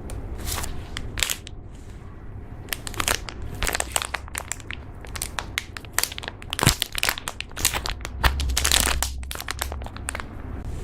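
Slime being squeezed and pressed by hand, giving many irregular crackling pops and clicks that come thickest through the middle and latter part.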